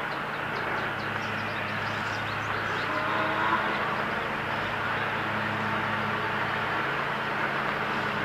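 Steady riding noise from a bicycle rolling along a paved trail: tyre and wind noise with a low steady hum underneath.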